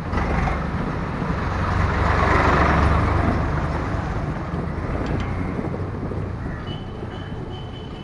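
Motor vehicles passing close by on a street: a low engine rumble with tyre noise that swells to its loudest about two to three seconds in, then fades. A faint high, repeating squeak comes in near the end.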